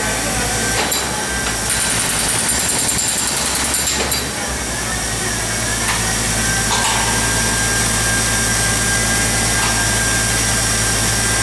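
Hydrodemolition robot's high-pressure water jet blasting spalled concrete out of an overhead slab: a loud, steady hiss with a low machine hum underneath and a few sharp clicks in the first few seconds.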